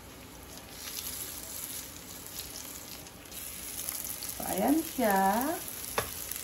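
Chicken longganisa sausages sizzling in a little oil in a frying pan as a third one is laid in. About four and a half seconds in, a voice gives a short hum, the loudest sound here, and a sharp tap comes near the end.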